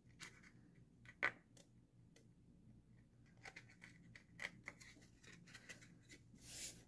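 Faint handling of a cardstock papercraft toy: paper rustling and small clicks as paper arm tabs are slid into side slots, with a sharper tick about a second in and a longer rustle near the end.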